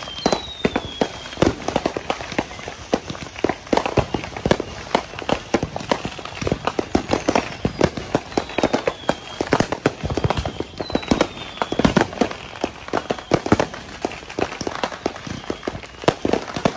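Consumer fireworks and firecrackers popping and banging continuously, many overlapping reports of varying loudness from near and far, with a few short falling whistles among them.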